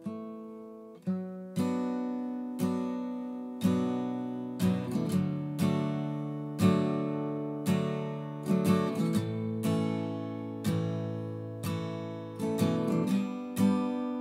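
Acoustic guitar strummed, with chords struck about once a second and a few quick flurries of strokes in between, each chord ringing on.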